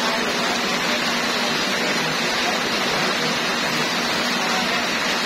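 Heavy rain falling steadily, a dense, even hiss of drops splashing into standing water on the ground.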